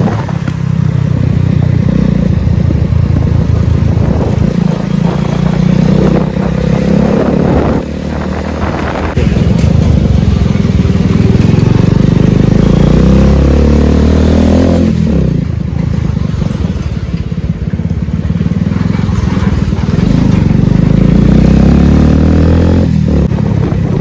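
Motorcycle engine running while being ridden, its pitch rising and falling as the bike speeds up and slows, dipping briefly about eight seconds in and again about fifteen seconds in.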